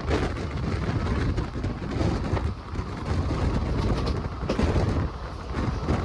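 Steady rumble of a passenger train running at speed, heard from aboard: wheels running on the rails with rushing wind.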